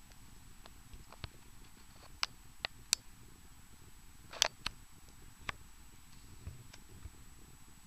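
Handling noise: several scattered sharp clicks and light taps, the loudest pair a little after four seconds in, over faint steady background hiss.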